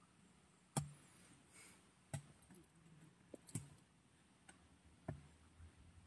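Near silence broken by about six faint, sharp knocks or clicks at irregular intervals, the loudest about a second in.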